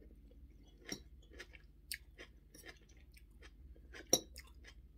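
A person chewing a mouthful of fried spaghetti with sausage, with soft wet mouth clicks and smacks scattered throughout and a sharper click about four seconds in.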